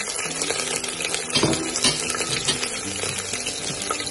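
Garlic-ginger paste, green chilli and whole spices sizzling in hot oil in an aluminium pressure cooker. The sizzle is a steady hiss, with a few sharp crackles and pops about a second and a half in.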